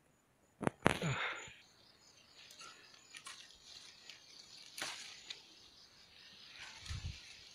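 Faint rustling of leaves and vine stems as a hand reaches into a wild passion fruit (Passiflora foetida) vine. There are a few sharp clicks about a second in and again near five seconds, and soft low thumps near the end.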